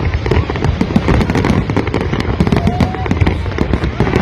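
Large fireworks display: a dense, continuous barrage of bangs and crackles with a deep booming underneath.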